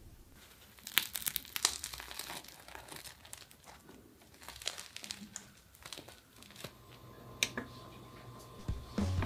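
Packaging being handled, crinkling and crackling in irregular bursts.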